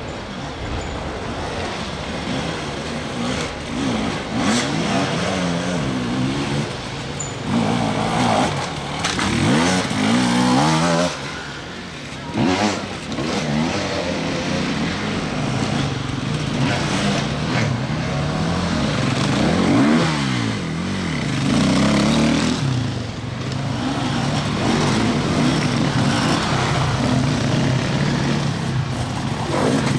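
Enduro dirt bike engines revving in repeated bursts, pitch climbing and dropping again and again, with several bikes running at once.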